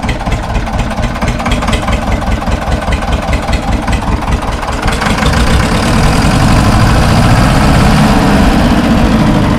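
Escort 335 tractor's two-cylinder diesel engine with a Bosch inline injection pump, running with a steady rapid beat that grows louder about five seconds in. The engine makes no extra noises.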